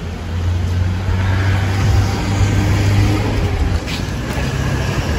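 Steady low hum of a motor vehicle engine running over street noise. It drops away about four seconds in.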